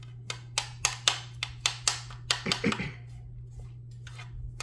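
Embossing powder being poured from a plastic tray back into its container: a quick run of light plastic taps and clicks over the first three seconds, fewer and fainter after that.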